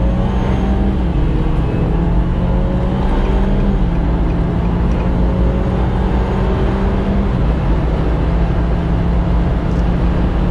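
Car under full-throttle acceleration from about 70 to 145 km/h: steady engine drone with road and wind noise, the engine note shifting in steps about one, four and seven seconds in.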